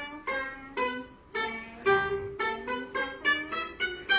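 A melody plucked note by note on a round-bodied Chinese lute, each note starting sharply and ringing briefly before the next, about two or three notes a second.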